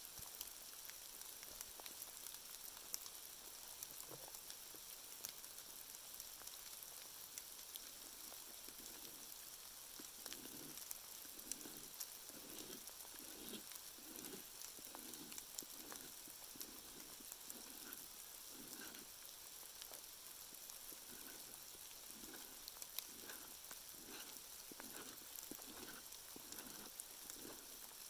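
A knife blade scraping a strip of wood into tinder shavings, in repeated even strokes about two a second that begin about a third of the way in. Behind it is a faint steady hiss with light ticks, like rain falling in the forest.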